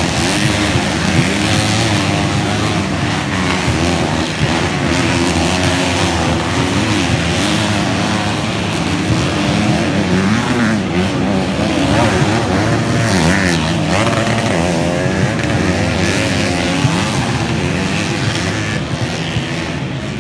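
Several grasstrack racing motorcycle engines running together, revving up and down as the bikes race round the track.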